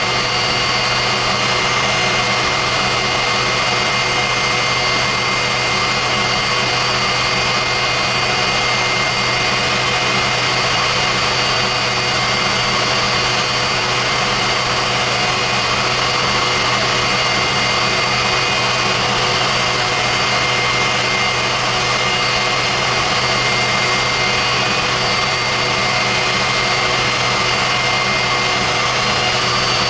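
Westinghouse J34 turbojet running steadily, a high turbine whine over a constant rushing roar, with no change in throttle.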